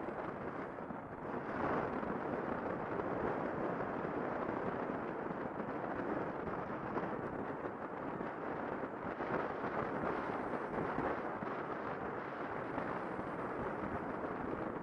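Wind rushing over the camera microphone on a moving motorcycle, with the engine and road noise underneath, getting louder about a second and a half in as the bike gathers speed.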